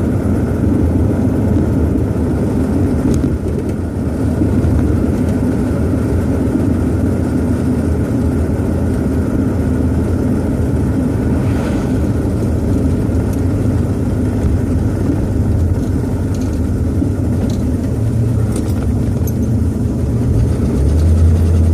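Inside the cabin of a 1966 Ford Thunderbird on the move: the V8's low, steady engine drone mixed with road noise. A stronger, deeper engine note comes in near the end.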